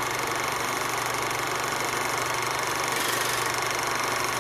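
Film projector running sound effect: a steady mechanical whirr with a fast, even clatter and a low hum underneath.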